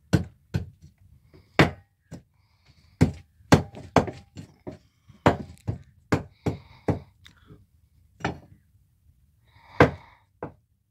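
A run of irregular sharp knocks and thumps, about fifteen in ten seconds, some much louder than others.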